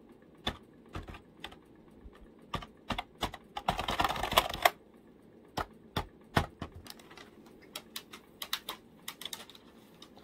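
Computer keyboard keys being tapped and typed on: scattered sharp single clicks, with a quick flurry of rapid typing about four seconds in.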